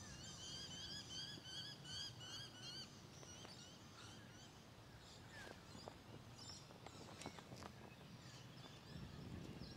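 A bird calling in a quick run of short chirps, about three a second, for the first three seconds, then a few scattered faint calls over quiet outdoor background.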